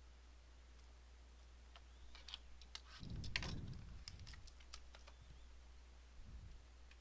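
Faint handling of trading cards and their packaging: a run of light clicks and crinkles from about two to five seconds in, with a soft thump a little after three seconds and another small one near the end.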